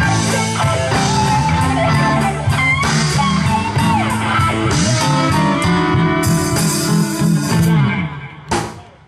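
Live rock band playing, led by two electric guitars, with lead notes bending in pitch. Near the end the sound drops away and then cuts off abruptly.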